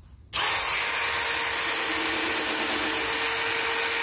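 Cordless drill running at a steady speed, boring a screw hole into a timber board; it starts suddenly just after the beginning and holds an even pitch.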